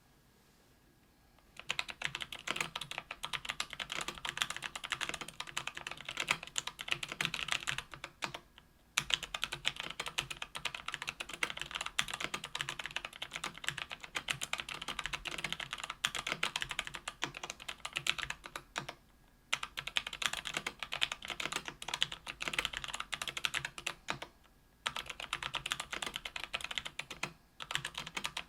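Steady typing on a KBDfans Tofu 65% aluminium keyboard with lubed Kailh BOX Brown 60 g tactile switches on an aluminium plate. A rapid, unbroken stream of keystrokes starts about a second and a half in and breaks off briefly a few times.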